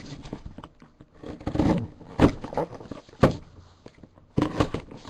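A trading-card box and its packaging being handled and opened: an irregular run of scrapes and taps, with a few sharper knocks.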